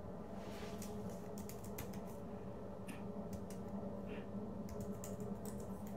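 Typing on a computer keyboard: irregular key clicks coming in short runs.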